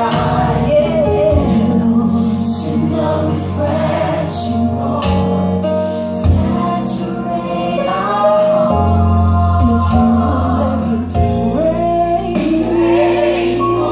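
Gospel song: a woman singing lead into a microphone over instrumental accompaniment and choir voices, with a long held note near the end.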